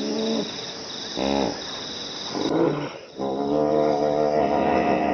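Hippopotamus calling: three short calls, then a long drawn-out call from about three seconds in. Crickets chirp in a steady pulse behind it until about halfway.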